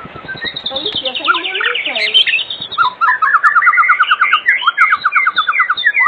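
White-rumped shama (murai batu) singing loudly and without pause: a fast trill sliding down in pitch, then quick runs of rapidly repeated notes mixed with short whistled glides.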